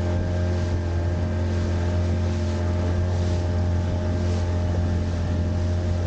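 Outboard motor of a rigid inflatable boat running steadily at cruising speed, a constant low drone, with wind and water rushing past.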